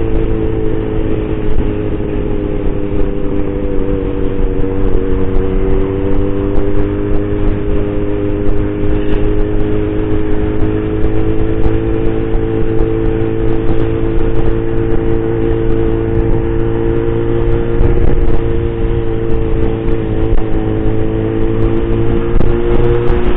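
Motorcycle engine running at a steady cruising speed under light throttle, its note drifting slowly down and up again. Low wind and road rumble sit underneath, heard through a handlebar-mounted camera's microphone.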